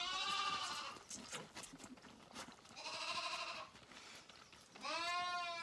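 Hungry lambs bleating at bottle-feeding time: three loud bleats of about a second each, one at the start, one about three seconds in and one near the end, with faint clicks and rustling in straw between them.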